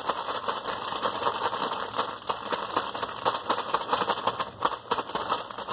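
A bag of chips being shaken to coat them in seasoning: continuous rapid crinkling of the bag with the chips rattling inside.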